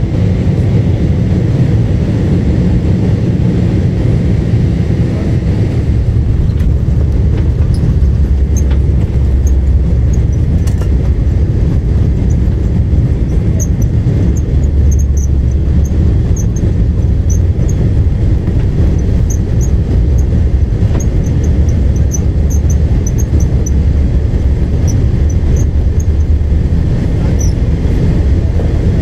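Steady low rumble of cabin noise inside a Boeing 747-8 airliner, with faint short high squeaks scattered through it from about eight seconds in.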